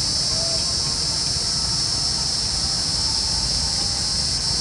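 Evening chorus of crickets and other insects: a steady, unbroken high-pitched shrill.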